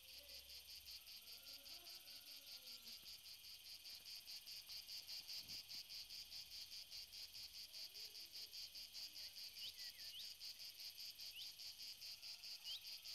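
Faint insects chirping in a steady, evenly pulsing rhythm of about five pulses a second, with a few short rising chirps near the end.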